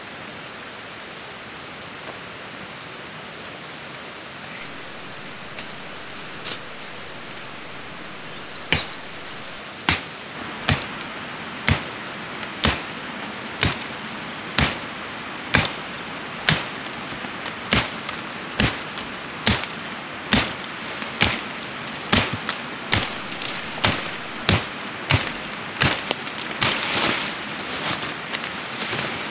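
Regular chopping strokes, about one a second, starting about nine seconds in and keeping an even pace, over a steady rush of flowing water. A few faint high chirps come just before the chopping starts.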